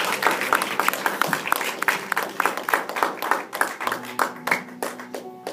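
A small group of people applauding with dense, irregular hand claps that thin out and fade in the last second or so.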